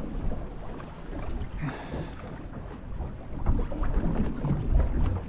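Wind buffeting the microphone in uneven gusts on a small boat at sea, with the choppy water moving against the hull.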